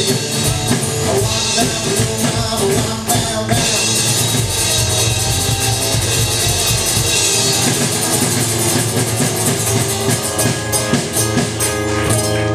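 Live rock and roll band playing: acoustic guitar over a drum kit, with a heavy wash of cymbals.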